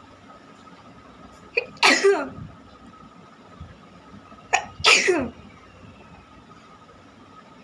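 A person sneezing twice, about three seconds apart, each a quick sharp catch of breath followed by a loud sneeze. The sneezes are brought on by chilli.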